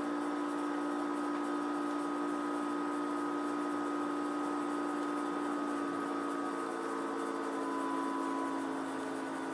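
Samsung AW05B5171TWA window air conditioner running, a steady mechanical hum with a whine over a rushing hiss; about six seconds in the whine slides a little lower. This is the machine noise the owner complains makes the unit anything but quiet.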